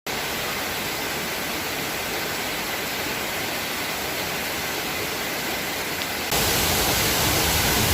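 Heavy rain pouring down in a steady hiss, growing louder about six seconds in.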